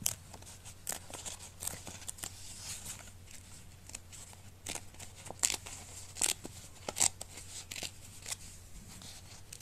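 Perforated edge of a paper mailer being torn off by hand: a run of short, irregular paper rips and crackles.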